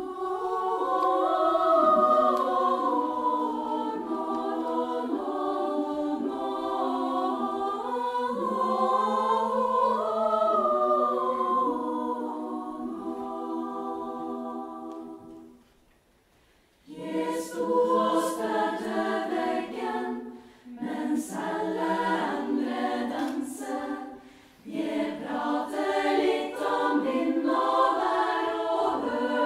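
Female choir singing a cappella in harmony: long held chords that fade away about halfway through, a short pause, then singing resumes in shorter, rhythmic phrases.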